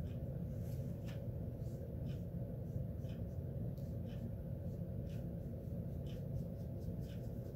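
Faint short strokes of a watercolour brush on paper, about one or two a second, over a steady low hum.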